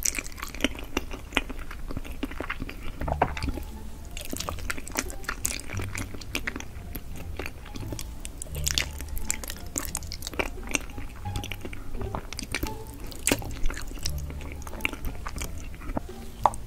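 Close-miked mukbang eating: a person biting and chewing food, with many short crunching clicks throughout.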